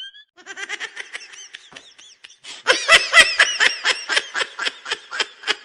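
High-pitched laughter sound effect, a fast run of repeated ha-ha pulses, soft at first and much louder from about halfway through.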